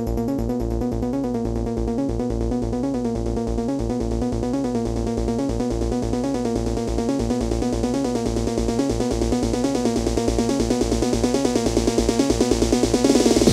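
Electronic dance track in a breakdown: the kick drum drops out, leaving held synthesizer chords with a fast pulsing pattern over a steady bass. A rising noise sweep builds toward the end.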